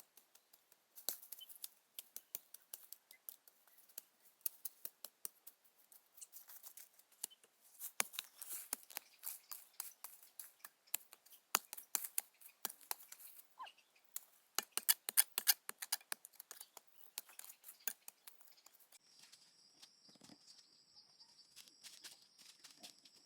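Irregular runs of quick, crisp clicks and snaps, densest and loudest in the middle, of the kind made by cutting or handling plant material. Near the end a steady high-pitched whine joins in.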